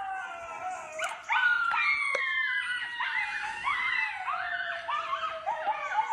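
A pack of wolves howling in chorus: many voices overlap, long howls sliding down in pitch mixed with shorter rising-and-falling yips and wavering notes.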